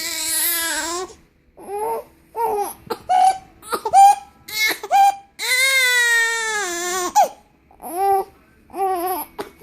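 Baby crying angrily: a long wail at the start, short choppy cries, a second long wail about halfway through that falls away at its end, then more short cries. She is upset by a bout of hiccups.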